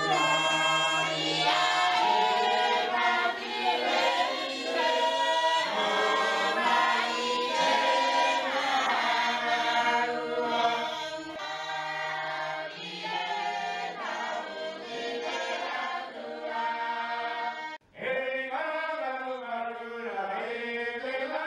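A group of people singing together unaccompanied, many voices holding long notes. Near the end the singing drops out for a moment and picks up again.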